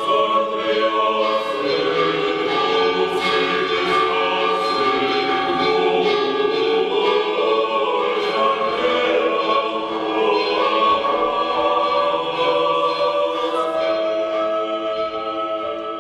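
A choir singing slow, sustained chords, fading out near the end.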